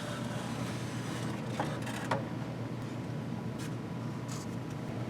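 Steady low background hum and hiss, with two faint clicks about one and a half and two seconds in.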